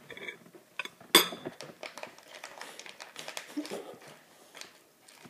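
Scattered clicks and clinks of small objects being handled, with one sharp knock about a second in.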